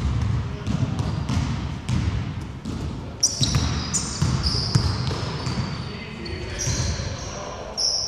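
Basketball bouncing on an indoor wooden court in repeated irregular thumps, with sneakers squeaking sharply on the floor from about three seconds in.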